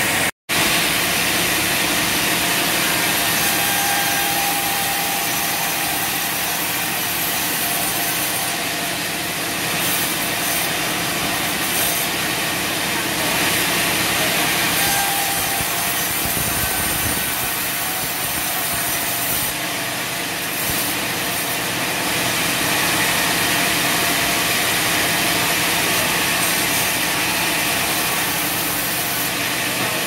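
Large sawmill band saw running steadily as timber boards are fed through it: a continuous machine hum under the hiss of the blade cutting wood. The sound drops out for an instant just under half a second in.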